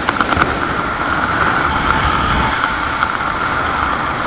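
Wind rushing steadily over a helmet camera's microphone during a parachute descent under canopy, with a few light clicks at the start.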